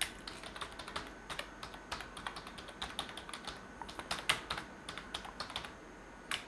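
Typing on a computer keyboard: a quick, irregular run of key clicks, with a short pause near the end.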